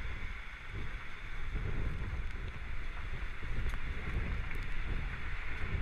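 Strong, gusty storm wind buffeting the camera's microphone near a tornado: a deep, uneven rush of noise, with a few faint ticks.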